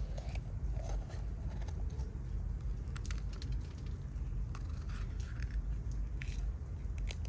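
A kitchen knife cutting into a fresh green bell pepper held in the hand: scattered crisp cuts and snaps of the firm flesh, most of them in the second half, over a steady low rumble.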